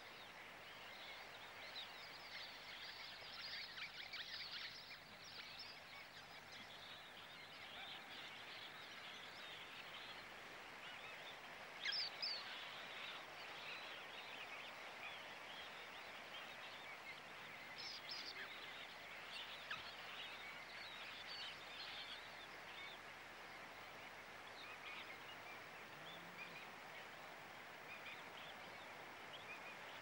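Faint twittering of many small birds, short high chirps coming thick and fast over a steady hiss, with a louder call about 12 seconds in and another about 18 seconds in.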